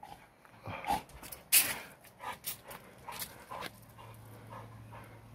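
A dog panting in short, irregular breaths after getting hold of the ball.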